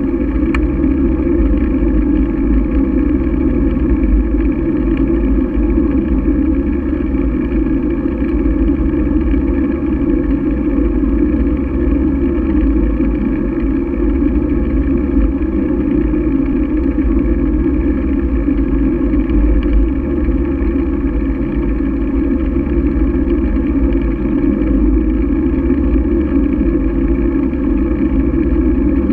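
Steady rumble of wind and road noise on a GoPro carried along on a moving bicycle, with no change in pitch.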